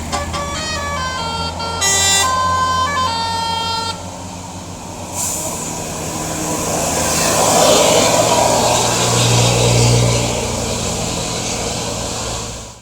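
A bus's telolet horn, a set of tuned air horns, playing a quick stepping tune of bright tones for about four seconds. Then a rushing noise swells and fades, with a low drone near its loudest point.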